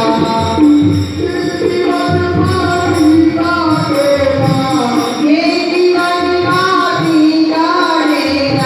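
A devotional song sung into a microphone and amplified, with instrumental and percussion accompaniment, the voice holding long, gliding notes.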